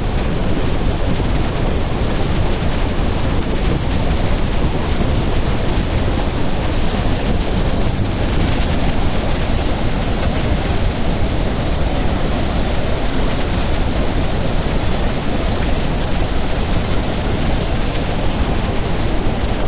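Jog Falls in monsoon flood, the Sharavathi River plunging over the cliff: a loud, steady, even rush of falling water.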